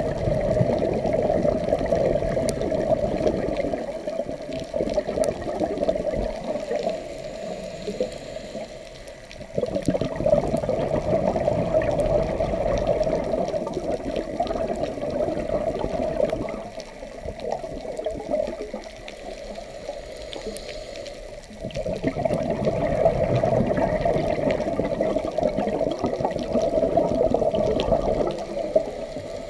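Scuba diver's exhaled bubbles rumbling past an underwater camera housing, muffled, in three long bursts several seconds apart with quieter stretches between breaths.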